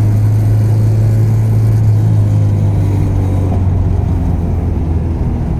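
Honda Civic with a swapped-in H22 four-cylinder, heard while driving: steady engine drone with road noise. The engine note drops in pitch about four to five seconds in.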